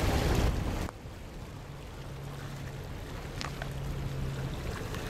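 Wind buffeting the microphone, which drops away about a second in. It leaves the low, steady drone of the engines of a passing bulk carrier and its tugs, with light wind noise.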